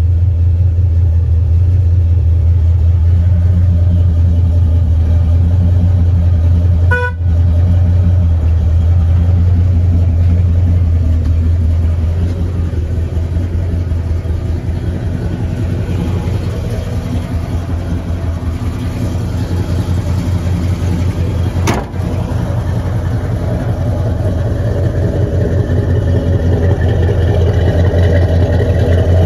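The 1969 Chevrolet Chevelle SS 396's big-block V8 idling steadily with a low, even rumble, dipping out briefly twice.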